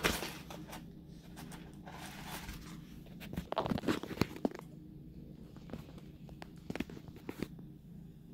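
Rolled diamond painting canvas, covered in clear plastic film, being unrolled and flattened by hand: irregular crinkling and rustling of the plastic, loudest about halfway through, then only a few faint taps.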